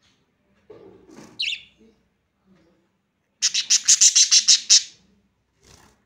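Pet budgerigars chirping: a single short chirp about a second and a half in, then a rapid run of about ten sharp, high chirps around the middle, the loudest part.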